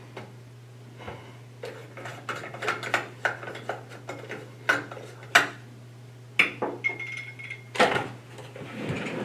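Irregular clinks and knocks of hard objects being handled and set down, a dozen or more, loudest around 5 and 8 seconds in, over a steady low electrical hum.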